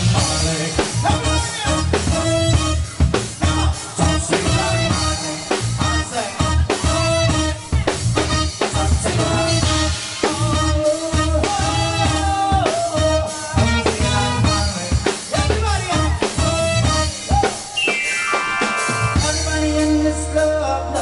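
Live band playing a dance medley: electronic keyboards over a steady drum beat. Near the end a downward sweep leads into the next song of the medley.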